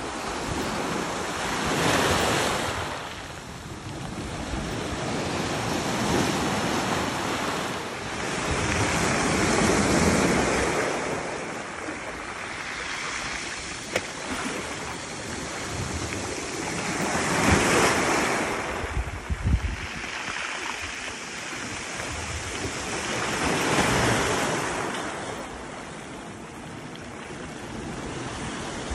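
Sea waves washing in over a rocky shore, the surf swelling and easing every few seconds, with some wind rumbling on the microphone.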